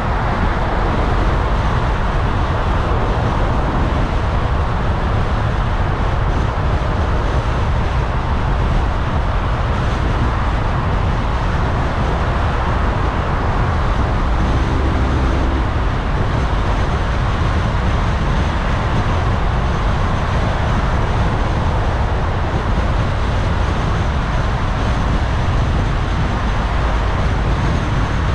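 Steady road and tyre noise of a car driving through city traffic, with a deep low rumble.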